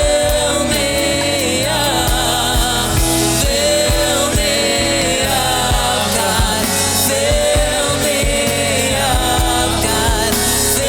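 Gospel worship music: a sung melody over instruments with a steady beat.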